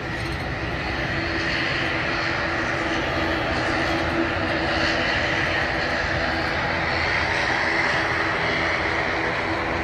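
Turboprop airliner's engines droning as it leaves the airfield: a steady engine drone with a higher whine on top, growing slightly louder about a second in.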